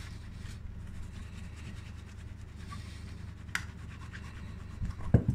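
Cloth rubbing against a metal cigarette case, hand-polishing it with finishing compound: a faint, steady scratchy rubbing over a low hum. There is a sharp click a little past halfway and a louder knock near the end.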